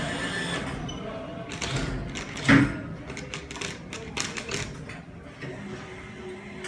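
Claw machine being played: a run of quick clicks and taps from its controls and mechanism, with one louder thump about two and a half seconds in.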